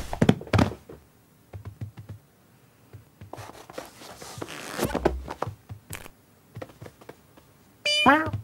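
Cartoon sound effects of a cat's antics: small taps and scratches, a rustling noise for about a second and a half in the middle, and near the end a short meow falling in pitch.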